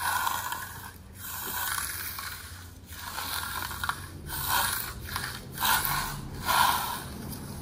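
Metal hand trowel scraping across a concrete countertop in repeated back-and-forth strokes, about one a second: hard-troweling (burnishing) the setting concrete to a smooth, mark-free finish.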